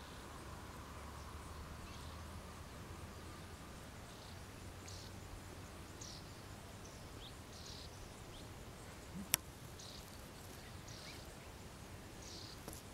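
Faint outdoor ambience with short, high chirps every second or so, from a bird or insect, and one sharp click about nine seconds in.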